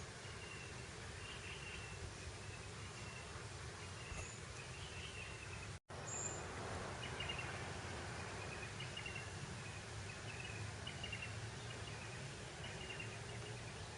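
Grassland ambience: a steady breeze with short high chirps repeating about once a second. The sound cuts out for an instant about six seconds in.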